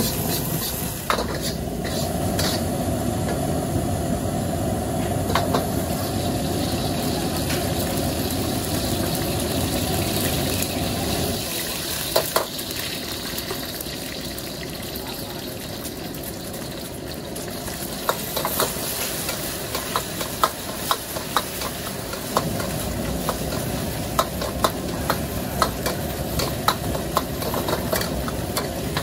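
Stir-frying in a wok: a steady sizzle over a low rumble, which drops away about eleven seconds in. Then comes repeated clanking of a metal spatula against the wok, growing faster and more regular towards the end.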